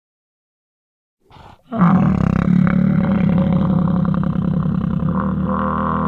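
Megatherium (giant ground sloth) roar sound effect. A faint short breath comes about a second in, then a long, low, rough roar begins just before two seconds in and holds steady.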